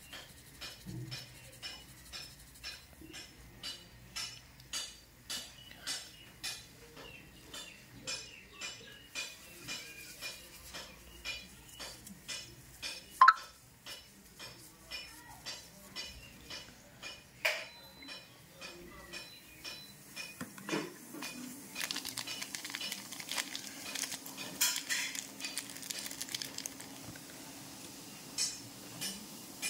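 A metal coin handled over a plastic tub: a steady run of small clinks a little under two a second, with two sharper clinks near the middle. About two-thirds of the way through, a steady fizzing hiss starts as Eno fruit salt foams in the liquid.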